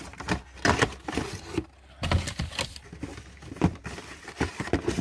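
Crumpled packing paper rustling and crinkling in a cardboard box as a figurine is dug out and unwrapped, in a quick irregular run of crackles and handling noises.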